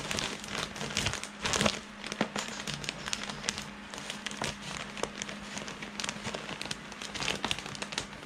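Plastic bag of coco fiber substrate crinkling and rustling as a hand scoops loose fiber out and drops it into a glass tank, with irregular crackles throughout and the loudest about one and a half seconds in.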